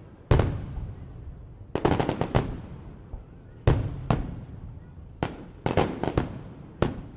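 Fireworks show: aerial shells bursting, a deep boom just after the start followed by clusters of sharp cracks every second or two, each dying away in an echo.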